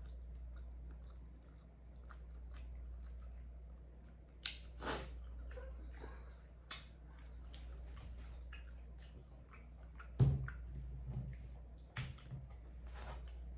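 Close-miked chewing, with scattered small clicks from fingers peeling boiled shrimp. The sharpest clicks come about four and a half seconds in, then around ten and twelve seconds, all over a low steady hum.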